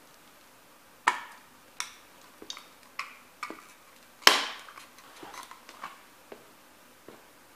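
Toy truck with a metal cab cracking and clicking under a sneaker sole as it is stomped and pressed down: a series of sharp cracks, the loudest about four seconds in, then a few lighter ticks.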